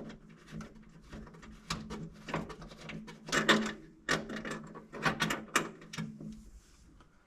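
Hand ratchet clicking in short bursts of strokes as a seat-mounting bolt is backed out of the truck's floor, with small metallic clicks and knocks from the tool and seat frame.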